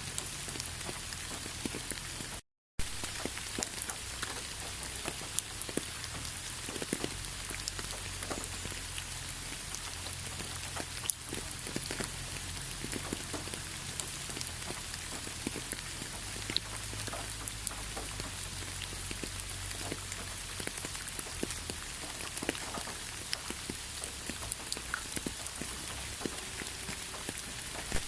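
Steady rain falling: an even hiss dotted with many scattered drop taps. The sound cuts out completely for a split second about two and a half seconds in.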